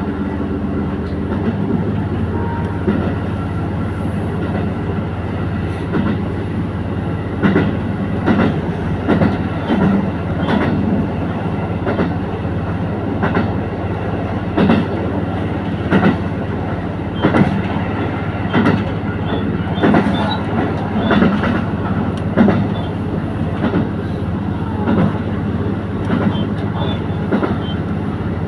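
Diesel railcar running along the track, heard from inside: a steady engine and running hum with repeated clickety-clack of the wheels over rail joints, about one click or pair of clicks a second.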